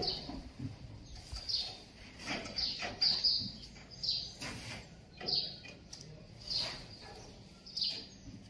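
A bird chirping over and over, short high calls that drop in pitch, about one every second.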